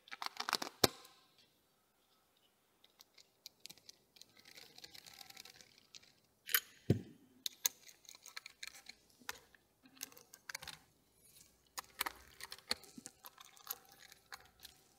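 Light clicks, taps and rustles of hands and small tools working on an RC touring car on a setup board. The clicks are scattered, with a soft rubbing hiss a few seconds in.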